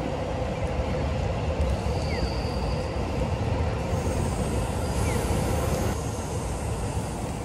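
Steady city street traffic noise, mostly a low rumble with a constant hiss over it.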